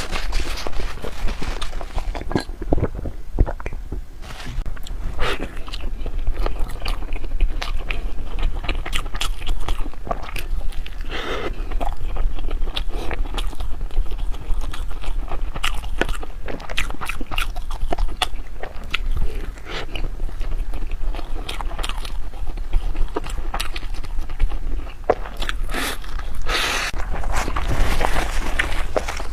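Close-miked eating of crunchy and creamy dessert: biting and chewing, with many small sharp crackles throughout.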